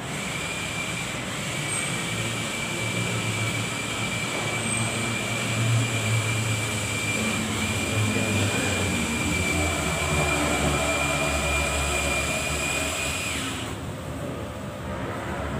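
A machine running steadily with a high thin whine over a hiss and a low rumble, cutting off suddenly about thirteen seconds in.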